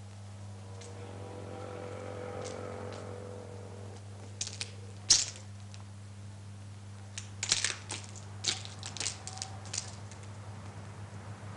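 Footsteps of a woman coming down a concrete stairwell and out of the doorway: scattered sharp clicks and scuffs, with one loud knock about five seconds in and a quick run of steps in the latter half, over a steady low hum.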